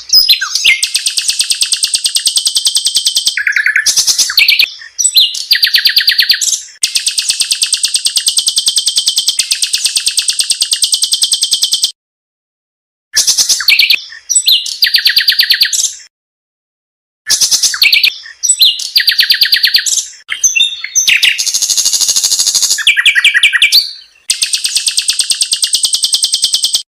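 Recorded song of a pancawarna bird: fast, high chattering trills in phrases of a few seconds, with abrupt silent gaps between some of them. It is a looped lure and tutor call.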